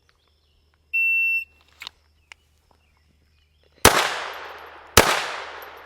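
A shot timer beeps once, a steady high tone about half a second long, giving the start signal for a Bill Drill. About two and a half seconds later a handgun fires twice, about a second apart, each shot ringing out and fading slowly.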